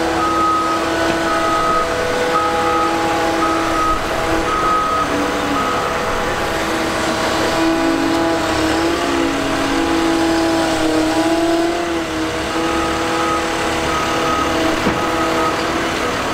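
Diesel engine of heavy machinery running steadily, with a backup alarm beeping about once a second. The beeping stops about six seconds in while the engine pitch shifts and wavers, then starts again near the end.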